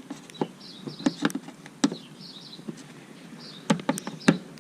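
Screwdriver tip clicking and knocking against a plastic push-pin retaining clip under a front bumper cover as it is pried at: sharp irregular clicks, with a quick cluster of four near the end.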